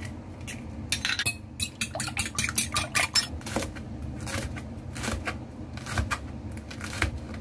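Kitchen prep sounds: a quick run of clinks and taps against a glass bowl where an egg has been cracked, then a knife slicing green bell pepper into strips, with a tap each time the blade meets the cutting board.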